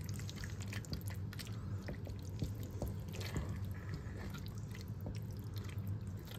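Spaghetti in thick tomato sauce being stirred with a silicone spatula in a nonstick pan: wet squelching and many small irregular clicks and pops from the hot, thickening sauce. A steady low hum runs underneath.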